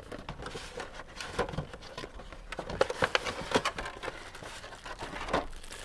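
A cardboard retail box being opened and unpacked by hand: the lid and inner tray sliding and scraping, with scattered light taps and clicks, busiest about three seconds in.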